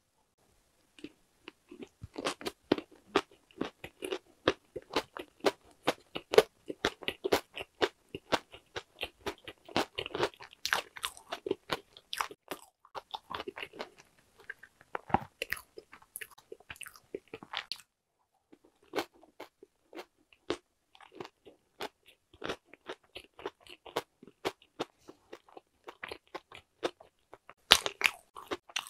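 Close-up chewing of a whole Korean walnut cake (hodu-gwaja), its large walnut pieces and crisp shell crunching between the teeth. The crunches come thick and fast at first, thin out about two-thirds of the way through, and pick up in a brief flurry near the end.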